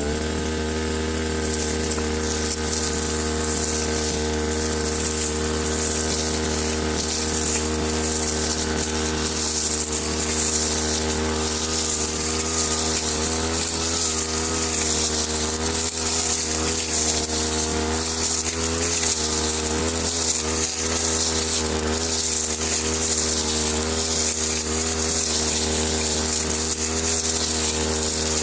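Brush cutter engine running steadily at high speed with its blade spinning. The pitch steps up right at the start and then holds, wavering slightly midway.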